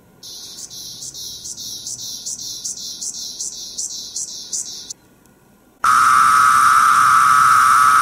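Periodical cicada songs, one after another. First comes a run of short, even buzzing pulses, about three a second, for nearly five seconds. After a short gap comes a louder, steady 'wee-o' or 'pharaoh' call of Magicicada tredecim that drops in pitch near the end.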